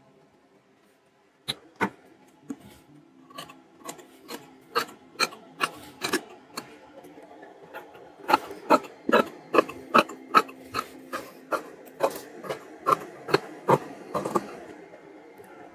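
Tailor's scissors cutting through several layers of cotton fabric: a run of crisp snips. They start about a second and a half in and come faster, about two to three a second, after about eight seconds.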